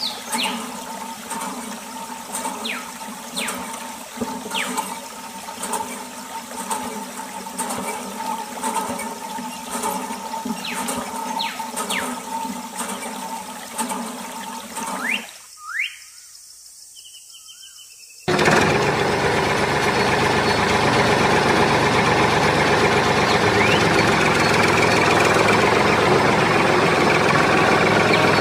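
Water flowing from a miniature water pump through a tube into a small toy tank, with a steady hum under it for about fifteen seconds. After a short quieter gap, an engine starts running loudly and steadily and carries on to the end.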